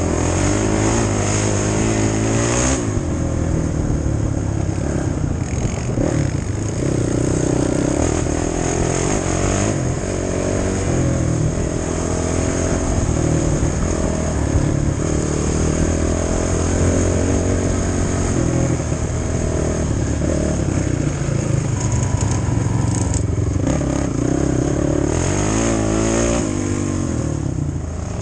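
Off-road motorcycle engine running under way, its pitch rising and falling over and over as the throttle opens and closes.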